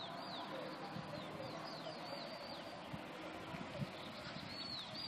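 Small birds chirping repeatedly: short, high whistles that fall in pitch, several a second at times, over a steady outdoor hiss. Soft low thuds of the walker's footsteps come now and then.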